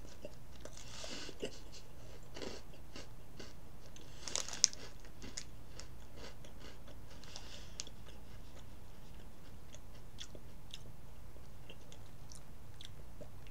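Close-up chewing and crunching of thin, crisp sesame snack crackers: scattered small crackles, with one sharp crack of a bite about four and a half seconds in.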